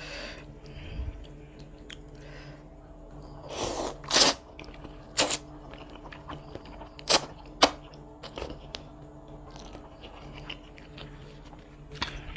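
Close-miked eating of mie ayam noodles: wet chewing with many small mouth clicks, and a few louder slurps of noodles between about four and eight seconds in.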